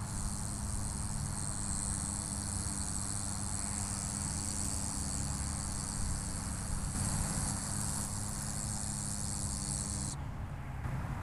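A steady high-pitched buzz that cuts off suddenly about ten seconds in, over a low rumble of wind on the microphone.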